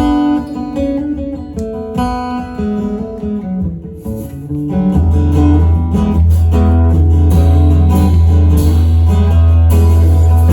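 Instrumental passage of a live song, led by picked acoustic guitar. About halfway through, a deep held bass note comes in and the music grows fuller and louder.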